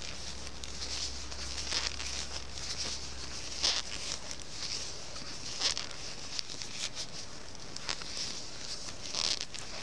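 Knitting needles and wool yarn working stitches: soft rustling and scratching, with a few brief louder scrapes spread through.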